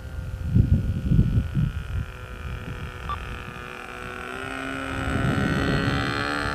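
Evo .36 two-stroke glow engine of an RC plane turning an 11x4 propeller in flight, its whine growing louder from about four seconds in as the plane comes in close on a low pass. Wind gusts buffet the microphone in the first two seconds.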